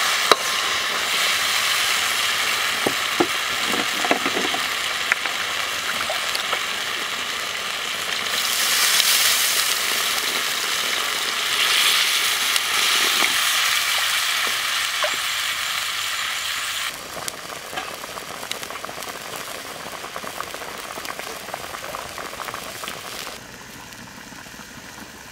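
Chicken curry sizzling in a steel wok over a wood fire, with a metal ladle stirring and clicking against the pan. A louder hiss swells around twelve seconds in as water is poured in. The sizzle drops off suddenly about seventeen seconds in, leaving a quieter hiss with small crackles.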